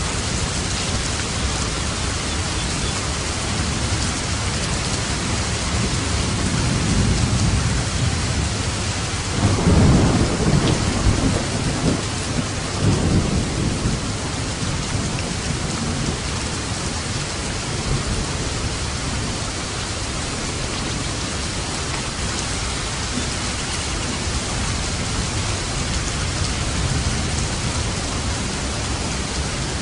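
Steady heavy rainfall hissing, with a roll of thunder that builds about a quarter of the way in, rumbles loudest around a third of the way through with a second surge, and fades out before the halfway point.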